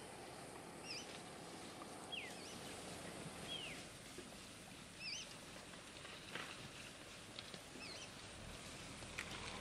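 Faint rustling and a few snaps of dry vegetation as a herd of African elephants walks and feeds through the bush. A bird calls over it in short repeated chirps, with two falling whistles near the start.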